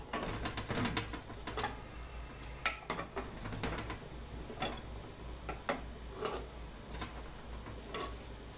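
Irregular metal clinks and light knocks of hand tools working on a rusty Curtis air compressor cylinder on a workbench, some with a short ring, over a steady low hum.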